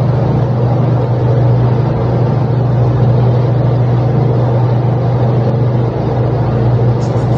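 Steady low engine drone heard from inside a moving vehicle, a constant hum with no change in pitch.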